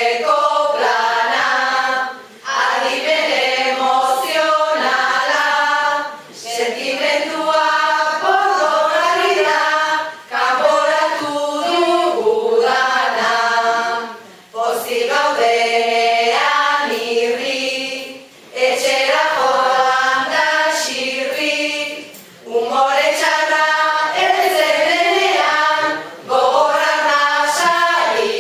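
A group of voices singing a song in short phrases, with a brief break about every four seconds. These are likely Basque koplak, sung verses.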